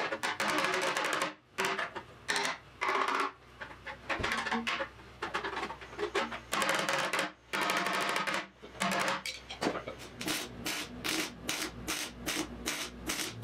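Hand tools and a hammer working on a Triumph TR6's steel frame rail, then a MIG welder crackling in short, quickly repeated bursts from about ten seconds in as the cut frame section is welded back together.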